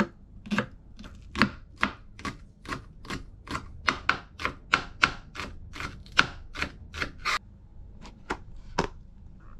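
Kitchen knife slicing a green onion on a plastic cutting board: steady chops about two and a half a second, stopping about seven seconds in. Three lighter, separate knocks follow near the end.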